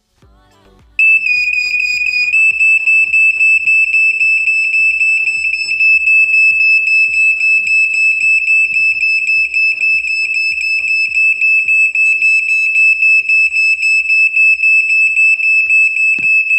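Smoke detector alarm sounding a loud, high-pitched steady tone that switches on about a second in and keeps going.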